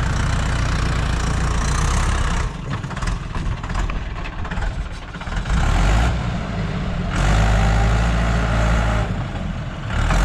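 Mahindra 575 tractor's diesel engine working hard under load, pulling a trailer full of sand up a soft sandy slope. The engine note sags a couple of seconds in and climbs again after about six seconds.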